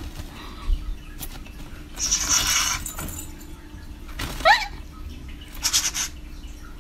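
Budgerigar making short, harsh hissing squawks and one quick rising chirp a little after the middle, its aggressive, fierce display.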